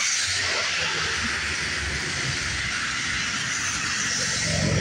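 Tyres of passing vehicles hissing on a wet road, a steady spray-like hiss over a low rumble of traffic.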